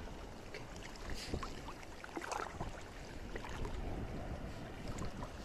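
Shallow seawater sloshing and lapping in a rocky tide pool, with scattered small clicks and ticks and a low rumble of wind on the microphone.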